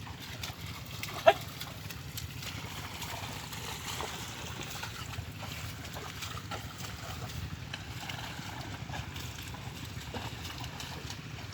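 Bullock-drawn plough working a wet field, with a steady sloshing and squelching of hooves and ploughshare through muddy water. About a second in, one brief, sharp, high sound stands out above it.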